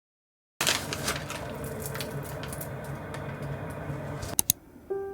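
Soft handling sounds in a small room over a low steady hum, with scattered light ticks and two sharp clicks in quick succession; gentle piano music begins near the end.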